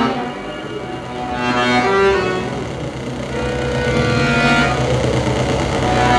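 Live electronic soundscape music: overlapping sustained pitched notes shift from chord to chord, and a low steady rumble comes in about halfway and grows louder.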